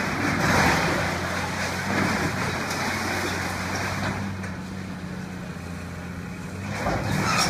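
Caterpillar tracked excavator's diesel engine running steadily while tearing down a brick building, with rubble and masonry crashing and scraping over it; the crashing swells about half a second in, around two seconds, and again near the end.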